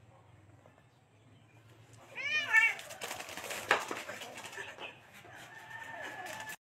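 Domestic cat meowing once, about two seconds in, followed by scuffling and sharp knocks as it scrambles across a hard floor.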